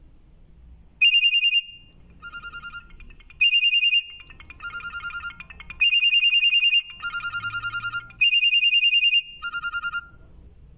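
Alcatel OT-2005D ringtone playing through a Samsung GT-B7722i phone's speaker. It starts about a second in and is a trilling electronic tone that alternates between a high and a lower pitch in phrases of about a second each, the high phrases louder.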